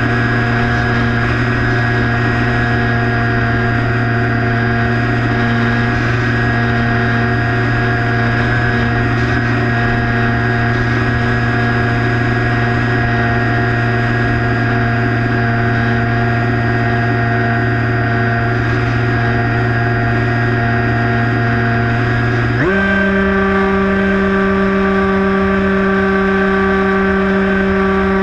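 Skywalker 1680 RC plane's electric motor and propeller running steadily in flight, heard from on board, with wind noise rumbling underneath. About 23 seconds in, the pitch jumps sharply higher as the throttle is opened.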